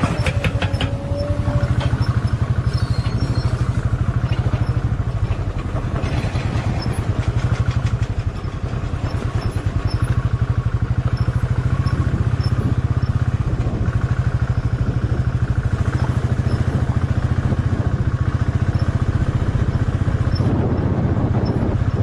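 Motorcycle engine running steadily with a fast, even low beat while riding over a rough dirt road.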